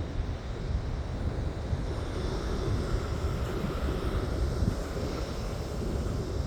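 Wind buffeting the microphone outdoors: a steady, choppy low rumble with a faint hiss above it.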